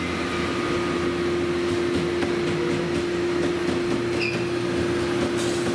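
Steady hum of workshop machinery, a constant low drone over a broad whir. A brief high squeak about four seconds in.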